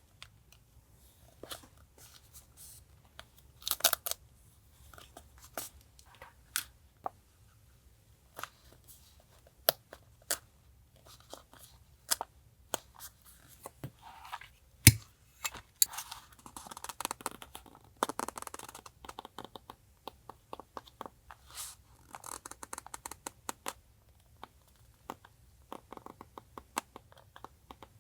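Hands working paper and stickers in a journal: scattered light taps and clicks with stretches of crinkling, rustling paper, and one heavier knock about halfway through.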